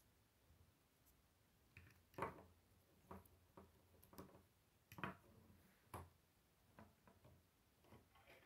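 Plastic K'nex rods and connectors clicking and knocking as they are fitted together by hand: about ten short, separate clicks at irregular gaps, the loudest about two seconds in.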